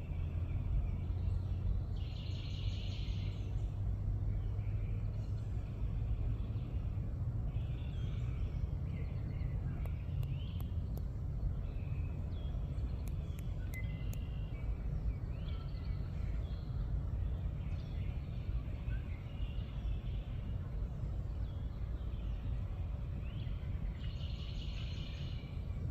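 Wild birds singing and calling on and off, with a denser burst of song about two seconds in and again near the end, over a steady low rumble.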